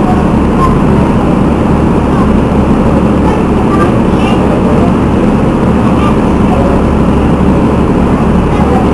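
The Alizé shuttle boat's engine idling steadily while moored, a constant deep running sound.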